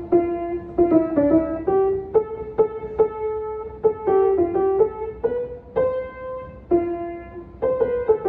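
Piano played by hand: a simple tune of single notes in the middle range, struck one after another at an easy pace, each ringing briefly into the next.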